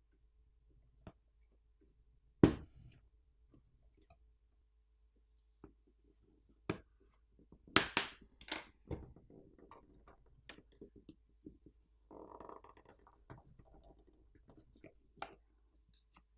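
Plastic pry pick worked along the edge of a plastic video-doorbell faceplate, with sharp clicks and snaps as the faceplate's catches pop loose, the loudest about two and a half seconds in and several in quick succession around eight seconds, and a brief scraping a few seconds before the end.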